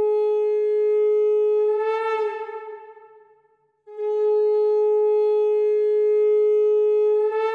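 Conch shell (shankha) blown in two long, steady blasts, each ending with a short upward lift in pitch before trailing away.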